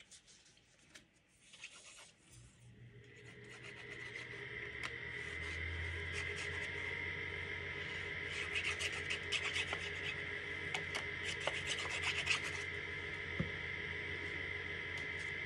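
A steady hum with a high whine in it, swelling in over the first few seconds and then holding, with light taps and rustles of cardstock being handled.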